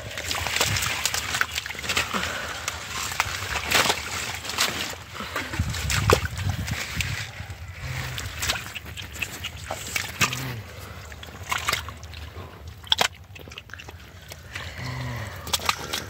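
Hands digging and scooping through wet mud and shallow water, with squelching, sloshing and many sharp short splats as the mud is worked by hand to catch fish.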